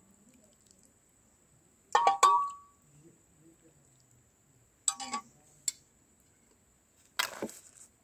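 Metal utensils clinking against dishes: a quick double clink with a short ring about two seconds in, another ringing clink about five seconds in with a tick just after, and a scrape near the end.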